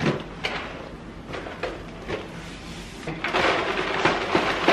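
Kitchen handling sounds: a few light knocks and clatters as cardboard cereal boxes and a milk carton are handled, then a louder, steady rustling noise from about three seconds in.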